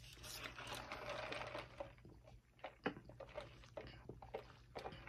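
Faint rustling and handling noise, then a few light clicks and knocks: takeout food containers being put aside and a drink cup being picked up.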